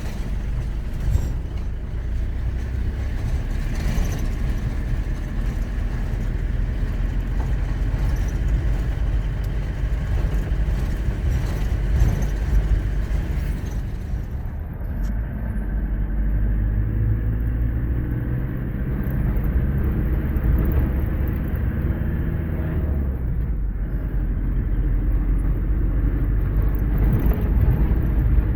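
Vehicle driving along an unpaved dirt road: a steady low rumble of engine and tyres, with the engine note a little more distinct in the second half.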